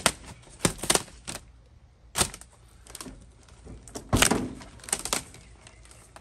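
A small knife stabbing and slashing through the clear plastic zip-in upper window of a Jeep Wrangler JK's Mopar half door: a series of sharp rips and crackles of tearing plastic, the loudest and longest about four seconds in.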